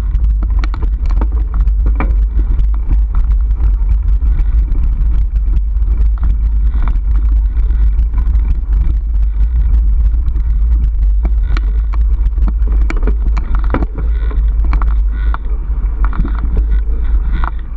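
Mountain bike ridden fast along a rough dirt single track: a steady low rumble of wind and vibration on the microphone, with frequent clicks and rattles as the bike jolts over roots and bumps.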